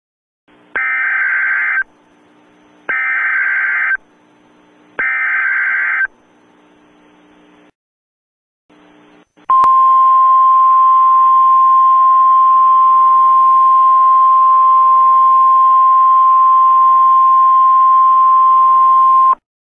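Emergency alert opening: three loud, roughly one-second bursts of screechy SAME header data, then a steady single-pitched alarm tone near 1 kHz that sounds for about ten seconds, the NOAA Weather Radio 1050 Hz warning tone. A faint hiss runs under it.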